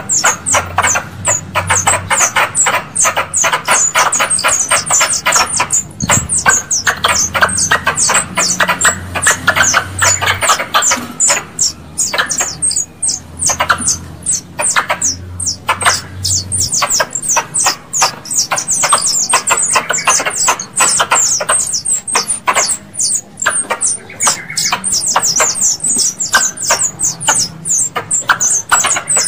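Squirrel calls played as a lure: a fast, unbroken series of sharp, high chirps, several a second.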